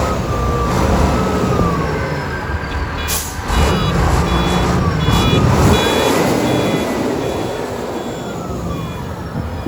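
Snow-removal heavy machinery (dump trucks and a rotary snowblower) running, with an engine pitch rising and then falling through the middle. A reversing alarm beeps at a steady pace from about three and a half seconds in, and a short hiss comes just before it.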